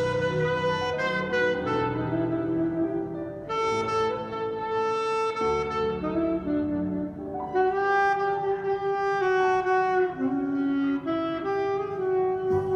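Instrumental break of a slow ballad: a saxophone plays a melody of long held notes over soft sustained accompaniment, played back through a hi-fi stereo system.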